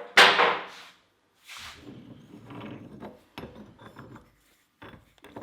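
A metal maul head being handled and worked over for markings: a loud scraping burst just after the start, then irregular rubbing, scraping and light knocks.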